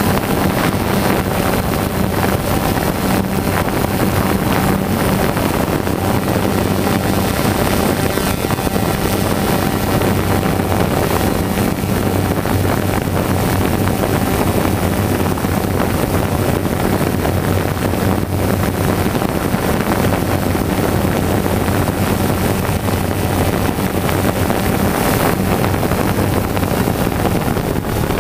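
Steady, unchanging hum and whir of a camera drone's motors and propellers in flight, mixed with wind noise on the microphone.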